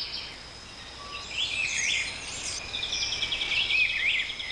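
Several birds calling and singing over one another: quick chirps, a fast even trill and short whistled notes that slide up and down, growing busier about a second and a half in.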